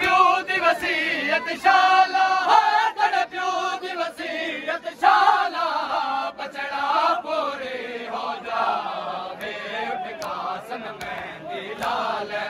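A crowd of male mourners chanting together in chorus, a Muharram mourning chant.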